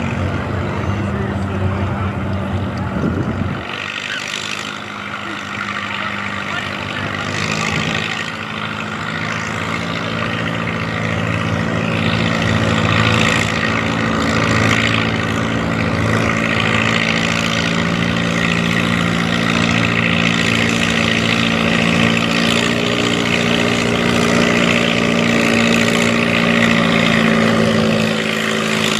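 Farm pulling tractor's engine running hard at high revs under load, a loud, steady drone whose pitch steps up a little several seconds in.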